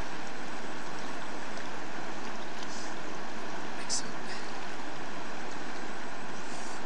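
Steady rushing of river water through a rapid, a constant even hiss, with a brief sharper hiss about four seconds in.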